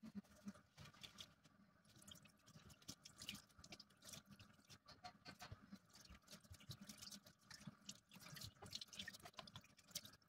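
Faint splashing and dripping of tap water in a kitchen sink, with scattered small clicks and rubbing as the basin is scrubbed by hand.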